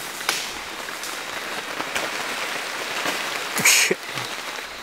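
Rustling and crackling of leaves and undergrowth on a forest walk, with scattered small clicks and one louder brush of foliage about three and a half seconds in.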